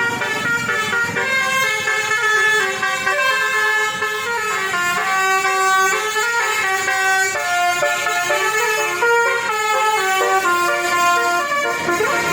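Basuri 'telolet' musical horn on a convoy vehicle playing a melody, its steady horn notes stepping from pitch to pitch every fraction of a second without a break.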